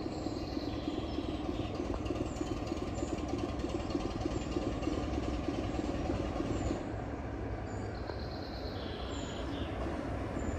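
A Class 25 diesel locomotive's Sulzer six-cylinder engine running as it approaches along the line, a steady low drone, with birds chirping now and then.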